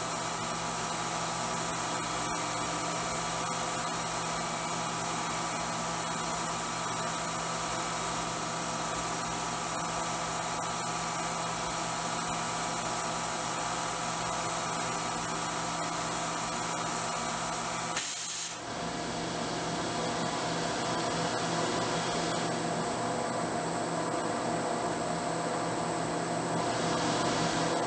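CNC milling machine spindle running with a steady high whine while a small pointed engraving cutter engraves lettering into a 52100 tool-steel coin die. The sound cuts out briefly about two-thirds of the way through, then carries on.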